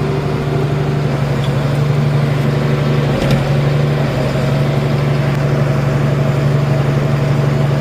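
Farm machine's engine running at a steady speed, a constant low hum, with one short knock about three seconds in.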